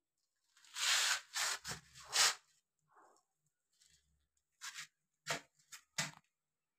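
Rubbing and scraping noises for about two seconds, followed near the end by four short, sharp clicks or taps.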